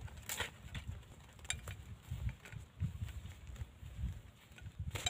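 Footsteps on dry grass and a dirt path, with scattered light clicks over a low, uneven rumble.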